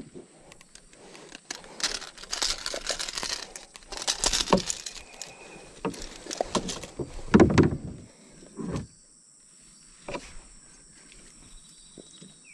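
Irregular rustling and scraping with several dull thumps on a plastic boat hull as a freshly caught snakehead (toman) is handled on the boat floor and lifted out; the loudest thump comes past the middle.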